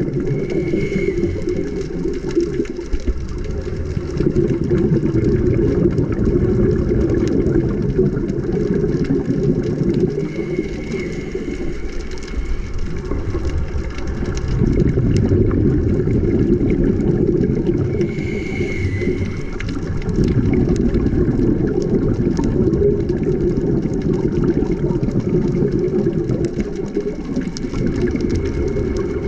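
Muffled underwater noise heard through a GoPro's waterproof housing: a continuous low rumble that swells and eases every several seconds, with a faint high whistle three times.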